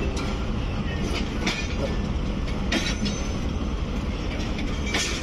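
Pakistan Railways train rolling along with a steady low rumble, with a few sharp clacks of wheels over rail joints.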